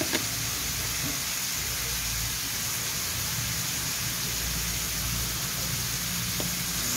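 Thinly cut beetroot frying in oil in a non-stick pan: a steady, even sizzle, with a small tap just after the start.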